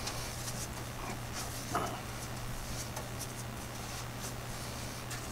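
Paintbrush spreading POR-15 rust-preventive coating over welded steel floor pans: soft, repeated scratchy brush strokes, over a steady low hum.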